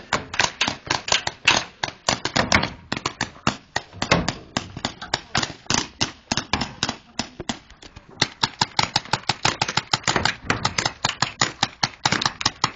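Paintball markers firing in rapid strings, many sharp pops a second, with brief lulls about two and a half seconds in and again around eight seconds.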